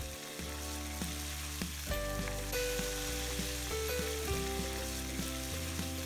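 Boiled lapsi (Nepali hog plum) fruits and whole cumin, fenugreek and fennel seeds frying in hot oil in a wok: a steady sizzle as a spatula stirs them, over medium heat. Soft background music plays along.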